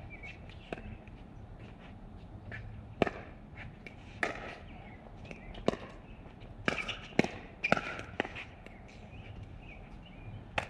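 Pickleball rally: paddles striking the hard plastic ball with sharp pops, a string of them from about three seconds in, some less than a second apart.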